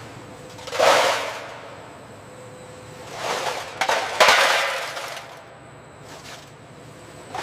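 Several sudden crashing impacts, each trailing off in a noisy decay: one about a second in, then three close together around three to four seconds in.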